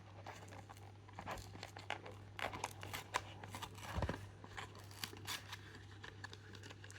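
Hot Wheels blister pack being opened by hand: scattered crackles and small tearing sounds of card and plastic packaging, over a steady low hum.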